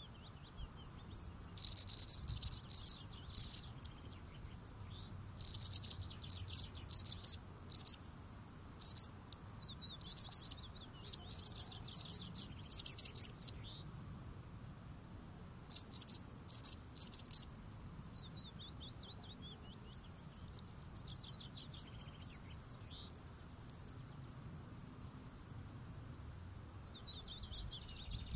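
European field cricket (Gryllus campestris) singing: loud, high chirps, several a second, in runs broken by short pauses. The loud chirping stops a little past the middle, leaving a fainter steady high trill.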